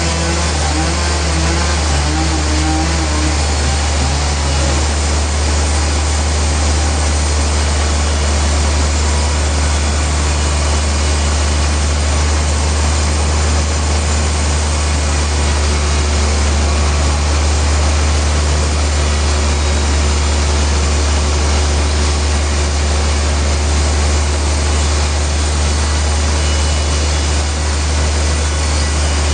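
Sawmill machinery running steadily: a loud deep engine drone under an even rushing noise, with the engine's pitch wavering in the first few seconds.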